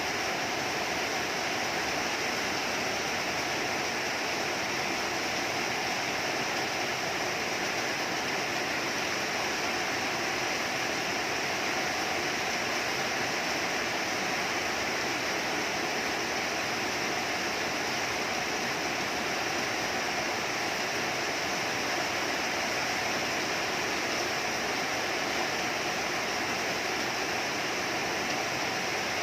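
Steady rain downpour, an even hiss that holds without a break.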